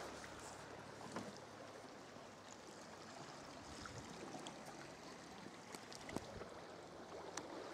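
Faint trickling and lapping of calm sea water around a paddled sea kayak, with a few soft clicks.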